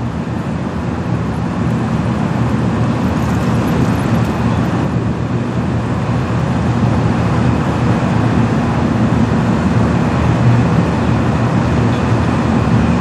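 A steady low engine rumble with a constant hum, slowly growing louder.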